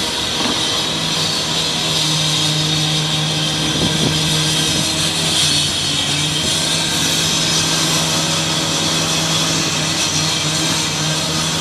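Steady machinery drone: a constant low hum under an even hiss, with no letup.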